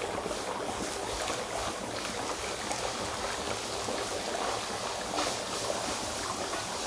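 Dry ice bubbling in water in plastic cups: a steady, churning fizz with many small pops.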